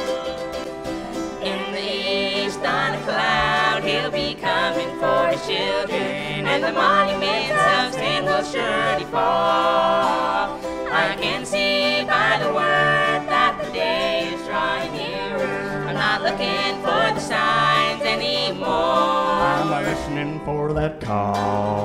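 A bluegrass-style gospel band playing live, with mandolin and guitars. Several voices come in singing together about two seconds in.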